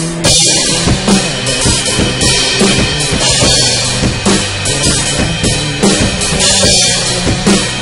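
Drum kit played hard, with kick, snare and a constant wash of crash and ride cymbals, over backing music with a bass line. The drums come in with a crash right at the start.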